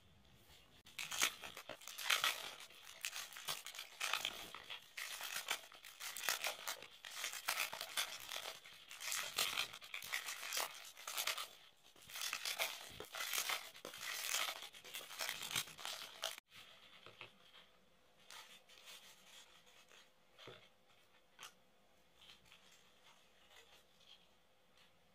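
Baseball card pack wrappers being ripped open and crinkled by hand, a long dense run of tearing and rustling. After about sixteen seconds it stops abruptly, leaving only faint rustles and clicks of cards being handled.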